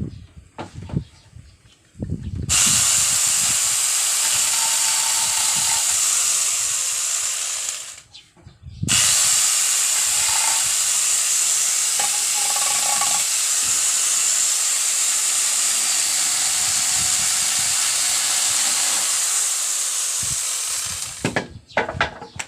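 Hitachi electric angle grinder fitted with a 12-inch chainsaw adaptor running with a loud, high hissing whine, in two long runs with a short stop between them about eight seconds in.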